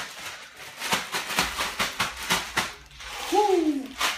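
Ice and salt rattling inside a gallon zip-lock bag shaken hard by hand, in quick rhythmic bursts, freezing a milk, sugar and vanilla mix into ice cream. Near the end, a short voice sound sliding down in pitch is the loudest moment.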